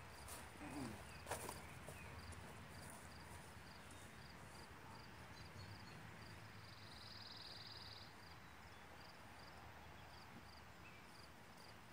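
Near-silent outdoor quiet with a cricket chirping faintly in short, evenly spaced, high pulses, running into a denser trill for about a second and a half around the middle. A couple of faint footfalls on grass sound in the first second or so.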